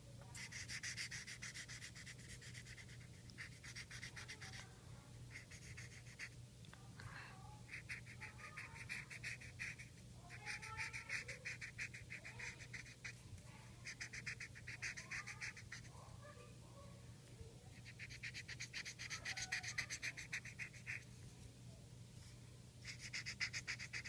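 Marker rubbing across paper in quick back-and-forth colouring strokes. The strokes come in bursts of one to three seconds with short pauses between them.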